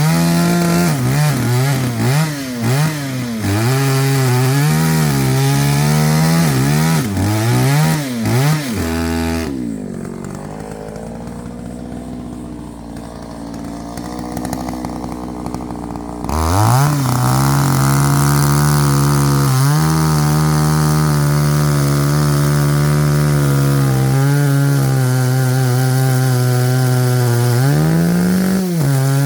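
Two-stroke chainsaw blipped up and down in short revs, then dropping to a low idle for about six seconds. It then climbs back to high revs and holds there, steady under load as if cutting firewood, with a brief dip near the end.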